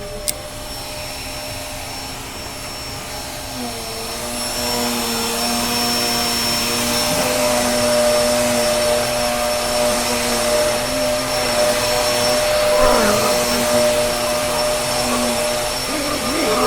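A machine's steady motor hum and whine over a hiss that swells louder about four seconds in, then holds. A single click comes just at the start.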